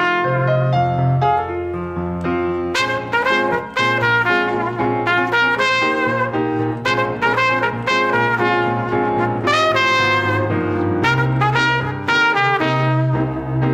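Live salsa band playing an uptempo number: a brass section of trumpets and trombones carries the melody over piano and a steady bass line.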